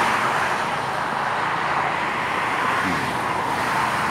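Road traffic going past: a steady rush of vehicle and tyre noise.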